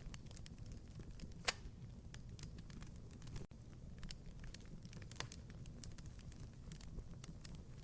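Wood fire crackling in a fireplace: scattered small snaps over a low steady rumble, with a sharper pop about a second and a half in and another a little past five seconds.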